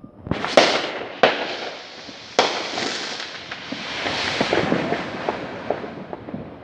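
Fireworks going off: four sharp bangs in the first two and a half seconds, then a long spell of dense crackling that fades toward the end.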